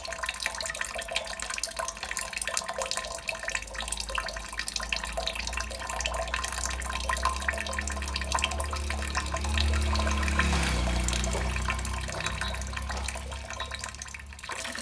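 Water drops falling into water in a dense, quick patter, with a low rumble that swells in the middle and fades again.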